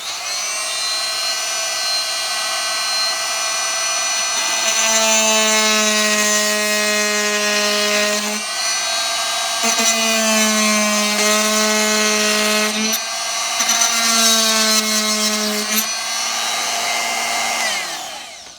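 Oscillating multi-tool fitted with a Milwaukee Japanese-tooth hardwood blade, running and flush cutting wooden dowels. It makes a steady high whine that deepens in three stretches in the middle as the blade works, and it stops shortly before the end.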